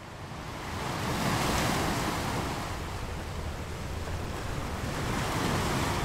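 Ocean surf: waves washing in as a noisy rush that swells about a second in and again near the end.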